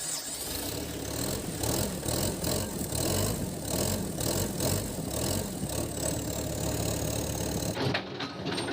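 Diesel engine of a Komatsu PC138 excavator running steadily just after starting, with a regular low pulsing; the low rumble drops away near the end.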